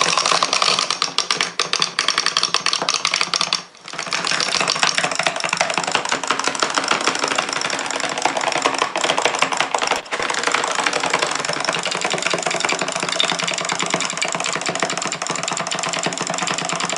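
Fast, dense clicking and clattering, like rapid typing, going on steadily with two short breaks, about four seconds in and about ten seconds in.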